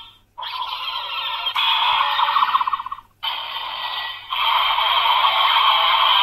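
DX Dark Z Riser toy playing its electronic sound effects and jingles through its small built-in speaker after a button press. The sound starts about half a second in, breaks off for a moment about three seconds in, then carries on louder.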